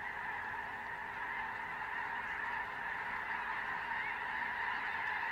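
A huge flock of snow geese calling all at once, a steady din of countless overlapping honks with no breaks.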